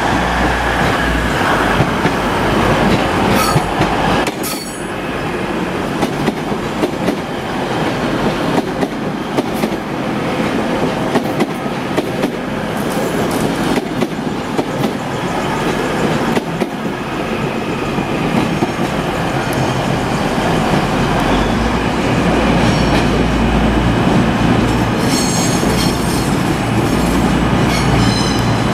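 TransPennine Express Class 802 trains running slowly through station trackwork, their wheels clicking over rail joints and points. Thin high wheel squeal rises a few times, most strongly near the end.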